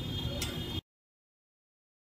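Low, steady background noise with a few light clicks, which cuts off suddenly to complete silence less than a second in.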